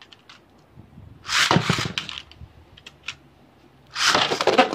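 Two Beyblade Burst tops launched one after the other into a plastic stadium: each time a quick pull of the launcher followed by the top hitting and scraping across the plastic, about a second in and again near the end.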